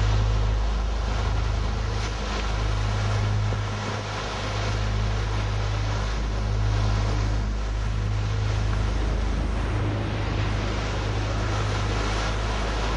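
Wind buffeting the microphone as a heavy low rumble that swells and fades, over a steady hiss of breaking surf.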